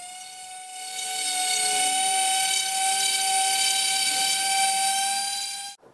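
Electric random-orbital palm sander running on an anvil's steel face, polishing it: a steady high whine with a hiss of abrasive over it. It grows louder about a second in and cuts off abruptly near the end.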